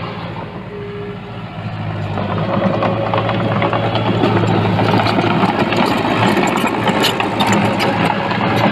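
Diesel engine of heavy earthmoving machinery running steadily and growing louder about two seconds in. Scattered sharp clicks and clanks sound over it later on.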